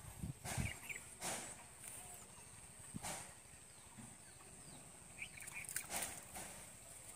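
Quiet outdoor ambience with a thin, steady high tone, broken by four short sharp clicks.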